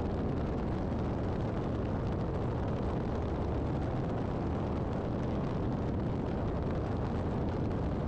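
Steady drone of a twin-engine piston airplane in flight, engine noise mixed with rushing airflow, on short final approach with the landing gear down.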